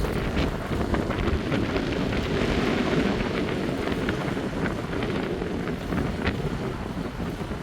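Wind-driven lake waves splashing against the shore, a steady wash broken by many small splashes, with wind buffeting the microphone.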